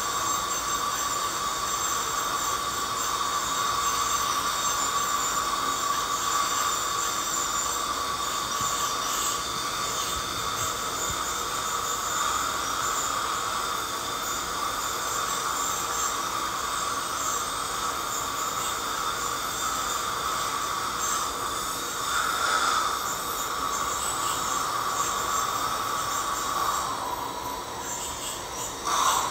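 Ultrasonic dental scaler running against the teeth, a steady high whine over a hiss, as it chips off heavy tartar. The tone drops away briefly near the end, then returns with a short loud burst.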